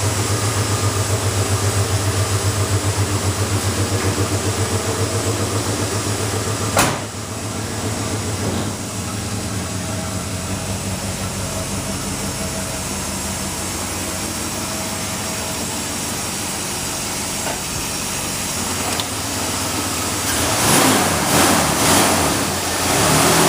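Ford 460 big-block V8 on FiTech fuel injection running, first with an even low pulse and then more steadily, with a single sharp knock about seven seconds in. Near the end the engine is blipped several times, picking up revs quickly: the fuel injection is very responsive.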